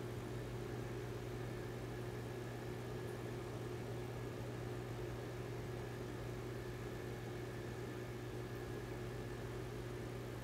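Aquarium pump humming steadily under a soft hiss, running the tank's sponge filters.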